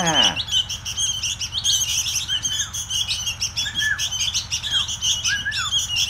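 A brood of young sooty-headed bulbuls begging for food: a dense, continuous chatter of high, rapid chirps. A few short whistled notes that rise and fall come in from about two seconds in.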